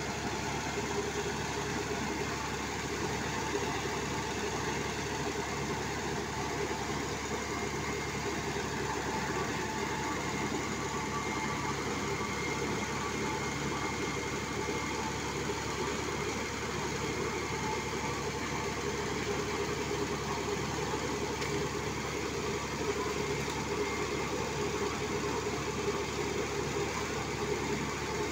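Engine of a sand-piling rig running steadily at a constant speed.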